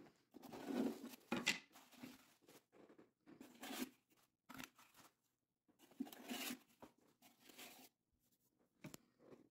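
Faint, irregular rustling and scuffing, several short bursts with gaps between them and the strongest about a second in: handling noise as a phone is moved around by hand.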